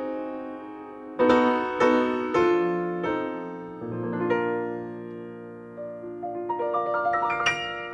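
Solo piano played on a Fazioli grand: three loud chords struck about half a second apart, each left ringing and fading, then softer sustained notes and a quickening run of higher notes near the end.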